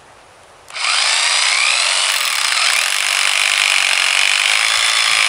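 Hilti TE-2S rotary hammer drilling into concrete. It starts up a little under a second in, its whine rising as the motor comes up to speed, then runs steadily.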